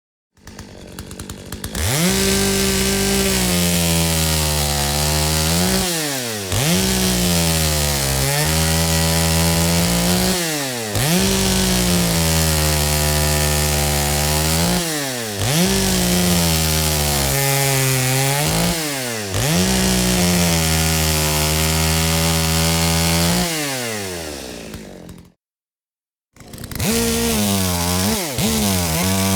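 Chainsaw engine revved hard and held, the throttle dropping back and climbing again about every four to five seconds. About 25 seconds in it winds down and stops. After a second of silence it starts again in quick revving blips.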